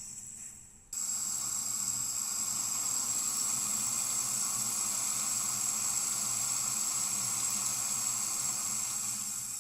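Sink tap turned on about a second in, water streaming from the faucet into the sink in a steady hiss, easing down near the end.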